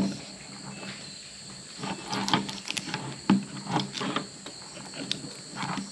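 Mud crab shells being cracked and pulled apart by hand: a string of sharp cracks and clicks about two to four seconds in, and another near five seconds, as the back shells are ripped off to clean the crabs. Insects chirr steadily behind.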